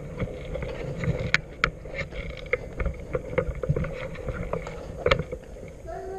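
Footsteps over loose wooden planks and debris, with irregular knocks and clicks and a low rumble of handling noise from the moving rifle.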